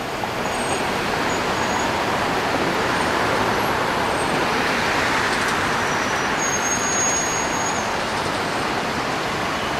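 Airbus A380's four Engine Alliance GP7200 turbofans at takeoff power during the departure roll: a steady rushing jet noise that swells slightly around the middle.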